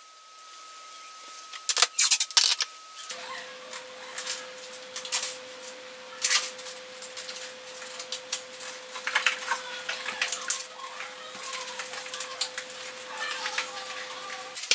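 Irregular clicks, taps and short rattles of a caulking gun and its sealant tube being handled and the nozzle worked on, with a faint steady hum underneath.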